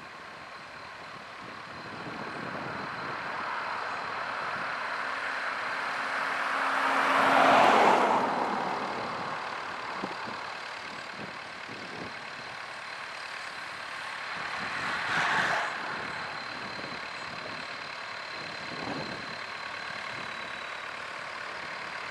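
Vintage tractor engines running as tractors drive past. The sound swells as one passes close, loudest about eight seconds in, with a smaller swell around fifteen seconds.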